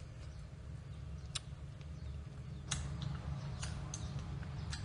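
Mouth sounds of chewing a sour fruit dipped in chili salt: a handful of short, sharp wet clicks spaced irregularly, over a steady low hum.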